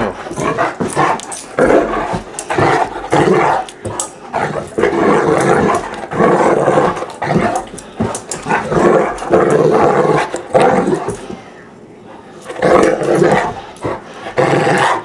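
Great Dane growling in rough play: loud repeated growls of varying length, with a short lull about twelve seconds in.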